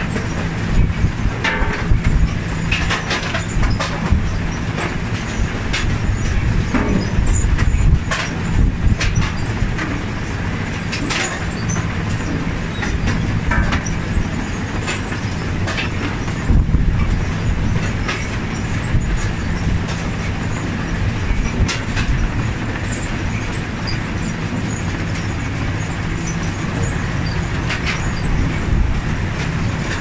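Potato harvester running: a steady low drone from the machine, with frequent knocks and rattles as potatoes tumble over its web conveyor and picking table.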